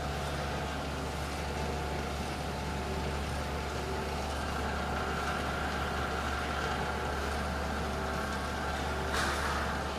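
Steady hum of the Groen tabletop steam-jacketed kettle's 1/3 hp agitator drive running, with a few steady whining tones above it. Near the end comes a brief rush of hissing noise lasting under a second.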